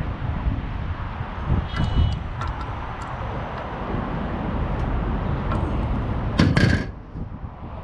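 Scattered light clicks and knocks over a steady low outdoor rumble, with a brief loud scraping rattle about six and a half seconds in.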